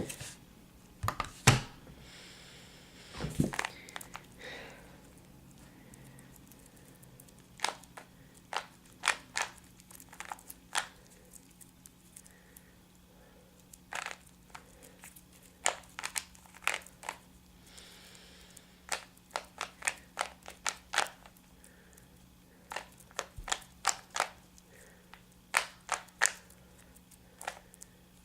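Plastic Rubik's Cube layers being turned by hand during a timed solve: irregular runs of sharp clicks and clacks, broken by short pauses.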